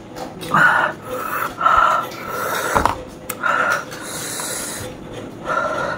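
A person gasping and panting through the mouth in short bursts about a second apart, drawing air in to cool a mouth burning from very hot chilli noodles.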